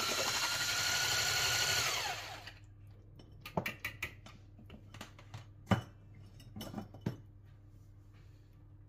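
Electric hand mixer with a whisk attachment running steadily as it beats egg into cake batter, then switched off about two seconds in, its whine falling away as the motor spins down. After that come several light knocks and taps as the whisk and bowl are handled and set down, the sharpest about halfway through.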